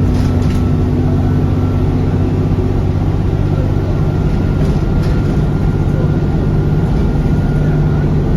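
Alexander Dennis Enviro400 Trident double-decker bus's diesel engine running steadily, with a faint, steady high whine from the turbocharger above it. The engine note rises slightly about halfway through.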